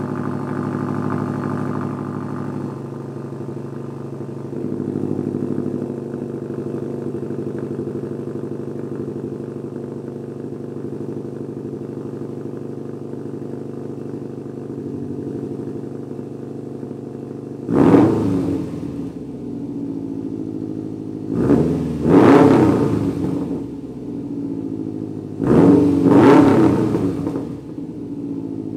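2020 Subaru WRX STI's turbocharged 2.5-litre flat-four idling steadily through a Magnaflow Competition cat-back exhaust, then revved in three quick blips about four seconds apart near the end.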